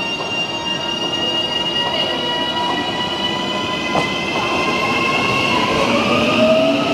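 Auckland AM class electric multiple-unit train pulling away from the platform: its traction motors whine in several tones that climb steadily in pitch as it gathers speed, over the rumble of wheels on rail, growing louder as the cars pass.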